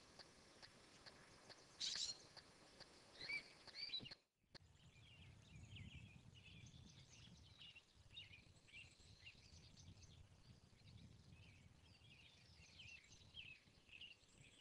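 Red-tailed hawk giving a few short, hoarse calls in the first four seconds. After a brief gap, only faint chirping of small birds and a low rumble remain.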